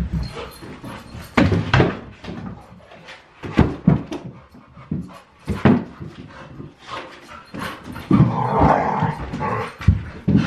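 Pet dog barking off and on, a sharp bark every second or two, from an excitable dog full of unspent energy.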